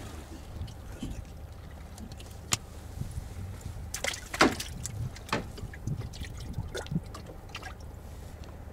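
Water lapping and trickling against a small fishing boat's hull over a steady low hum, with scattered clicks and knocks from handling in the boat; the loudest knock comes about four and a half seconds in.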